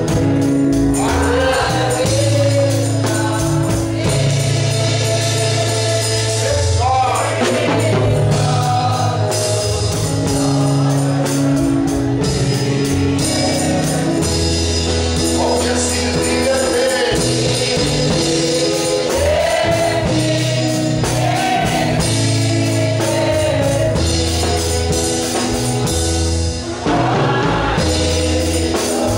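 Gospel song in church: a man's voice leads over a microphone with the congregation singing along, backed by held bass notes and a tambourine.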